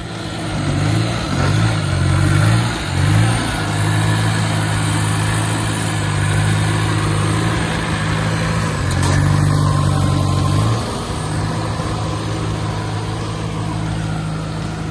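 Truck-mounted forklift's engine running as it drives with a load. Its pitch wavers over the first few seconds, climbs for a couple of seconds about eight seconds in, then drops back about eleven seconds in.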